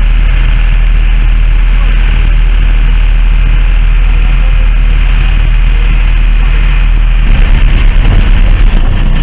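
Loud, steady rumble on board a fishing boat at sea: the boat's engine running, with wind noise on the microphone. The rumble turns more uneven and gusty about seven seconds in.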